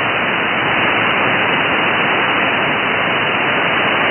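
Steady hiss of static from a shortwave ham radio receiver tuned to 7.200 MHz lower sideband on the 40-metre band, with no station transmitting.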